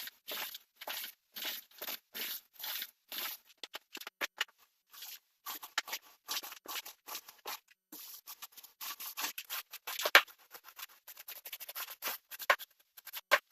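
Repeated scratchy strokes of paint being spread over drywall, about two a second at first, then faster and more jumbled.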